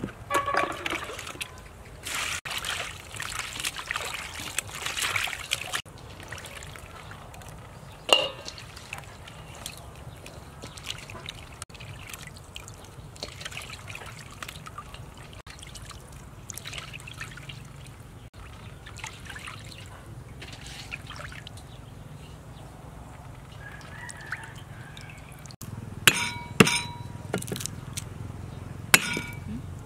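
Water sloshing and trickling in a steel bowl as meatballs and fish balls are handled and lifted out to drain, loudest over the first six seconds, with a single sharp knock about eight seconds in. Near the end come several sharp knocks on a wooden chopping block as garlic cloves are crushed.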